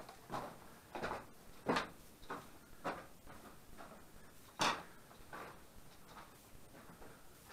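Footsteps at a walking pace, about three steps every two seconds, with one heavier step a little past halfway.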